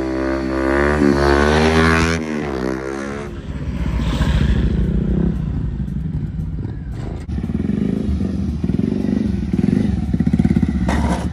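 Motorcycle engine revving hard for about the first three seconds, its pitch dipping and rising with the throttle. It then drops to a lower, rough, rapidly pulsing run for the rest of the time.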